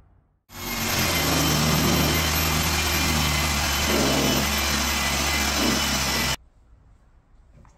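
A motor-driven machine running steadily with a dense hiss over a low hum. It starts about half a second in and cuts off abruptly after about six seconds.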